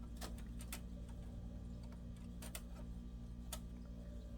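Faint light clicks and taps of small tools and tiny screws being handled on a laptop's chassis, a quick cluster in the first second and a few more after a pause, over a steady low hum.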